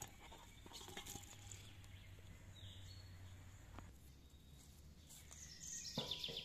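Quiet outdoor background with a single short bird call. Near the end, a few metal clanks as a steel wok is set down on its iron stand over a wood fire.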